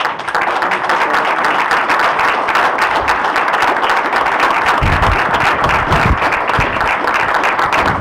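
Audience applauding: loud, dense clapping from a large crowd that starts abruptly, with a few low thumps about five to six seconds in.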